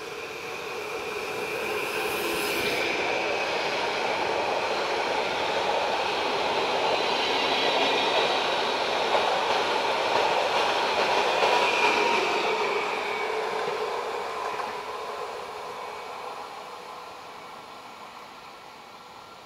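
PKP Intercity ED160 (Stadler FLIRT) electric multiple unit passing close by: the rumble of wheels on rail builds over the first couple of seconds, stays loud for about ten seconds, then fades steadily as the train draws away.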